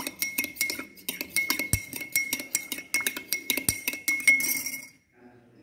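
Metal spoon stirring salt into warm water in a glass, clinking rapidly and repeatedly against its sides while the glass rings with a steady tone; the salt is being stirred until it dissolves. The stirring stops near the end.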